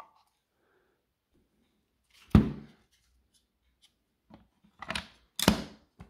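Hard plastic housing of a Milwaukee M18 battery being fitted back together by hand: a sharp knock a couple of seconds in, then a few lighter clicks and scrapes, and another sharp knock near the end as the top cover is pressed onto the base.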